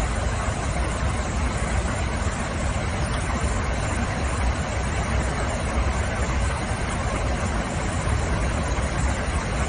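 Steady cabin noise inside an airliner in flight: a constant low rumble with an even rushing of airflow and engines.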